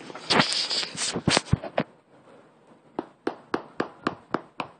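Brief rustling with a few clicks, then sharp taps at a steady pace of about four a second, starting about three seconds in.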